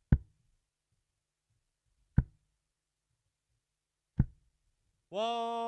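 Three steel-tip darts thudding into a Winmau bristle dartboard, one sharp hit about every two seconds. Near the end a man's voice starts a long, drawn-out call.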